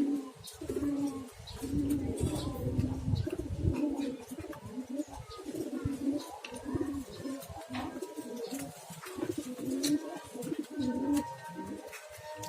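Grey domestic pigeon cooing in repeated low phrases that swell and fall about once a second, with short sharp clicks scattered between them. The owner says this bird has a cough.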